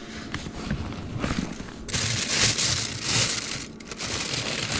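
Rustling and crinkling handling noise that comes in two long stretches, the first starting about two seconds in, with scattered quieter rustles before it.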